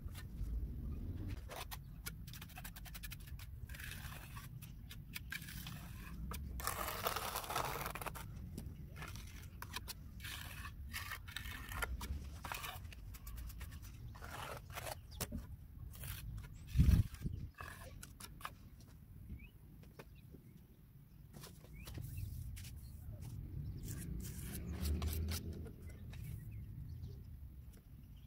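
Steel trowel scraping and tapping on wet cement mortar along a tiled edge: scattered clicks, a longer scrape about seven seconds in, and one dull thump about halfway through, over a low rumble.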